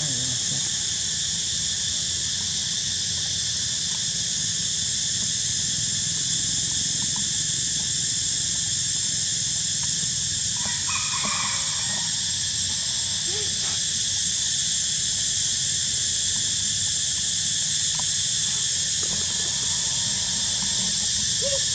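A steady, high-pitched insect drone, with a brief squeaky animal call about eleven seconds in.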